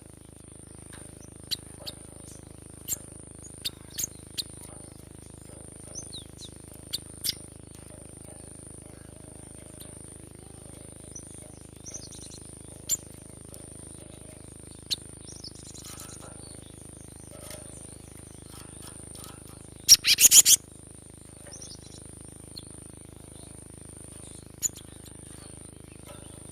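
Cinereous tit (gelatik batu) calling: scattered single sharp chirps, with a loud quick run of several notes about twenty seconds in.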